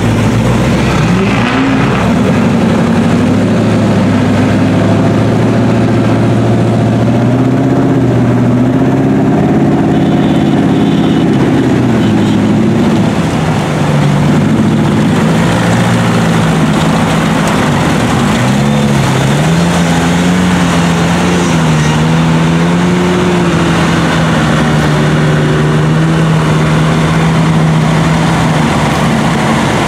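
Lifted off-road mud truck engines revving as the trucks wade through deep floodwater. The pitch rises and falls for the first half, then holds steadier near the end.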